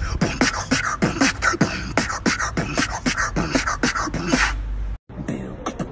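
Human beatboxing: a fast run of vocal kick, snare and hi-hat sounds mixed with short pitched vocal sounds. It breaks off about five seconds in, and after a brief gap another beatbox pattern starts.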